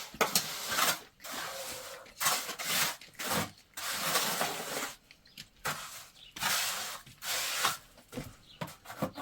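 A series of rough scraping or rubbing strokes, uneven in length, roughly one a second.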